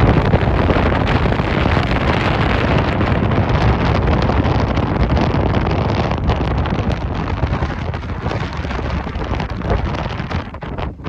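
Strong wind buffeting the microphone in loud, uneven gusts, heaviest in the low rumble, easing briefly just before the end.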